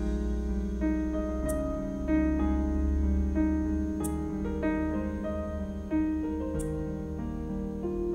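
Background music: a gentle piano melody over a sustained low bass, with a soft high swish about every two and a half seconds.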